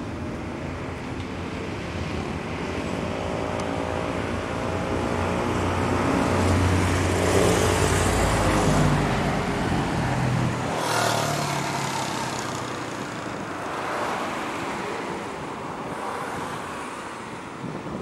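Road traffic on a city avenue: engine noise builds to a peak about eight seconds in as a vehicle passes close, and another vehicle goes by quickly about eleven seconds in.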